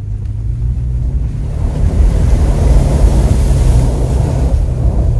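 Toyota Tacoma pickup's engine running as it drives fast through a creek, with a loud rush of splashing water swelling from about a second and a half in and easing off near the end.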